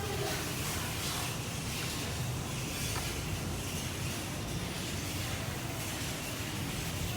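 Steady outdoor background noise: a low rumble with a hiss above it, unchanging throughout.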